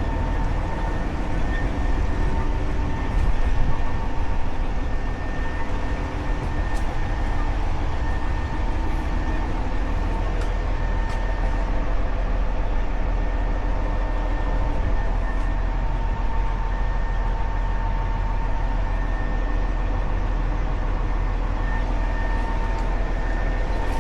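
Motor grader's diesel engine running steadily while levelling ground: a low drone with a thin steady whine over it.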